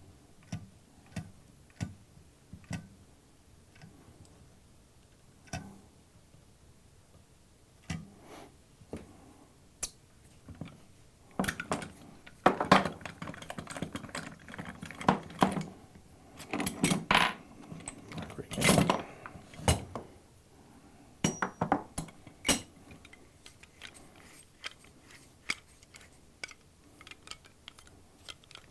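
Hydraulic hand-pump hose crimper being worked on an AC hose fitting: scattered metallic ticks and clicks, then about ten seconds of louder metal clinking and clattering in the middle as the crimp is finished and the crimper's parts are handled.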